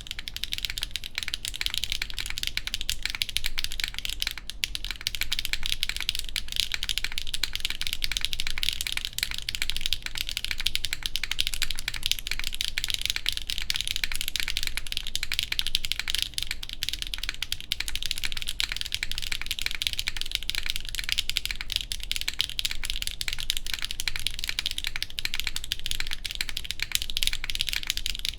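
Steady, fast typing on a Geonworks F1-8X V2 mechanical keyboard, with HMX Macchiato switches on a full aluminium plate, GMK keycaps and the case screw under the spacebar removed. Dense keystroke clicks start abruptly and keep up without a break.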